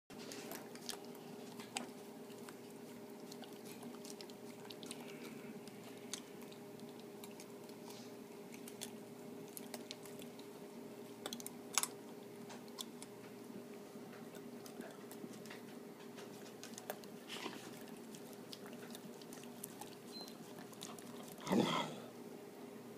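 Dogs licking muffin batter off metal hand-mixer beaters: irregular wet licks and small clicks of tongue and teeth on the beaters, over a steady low hum. A brief louder pitched sound comes about a second before the end.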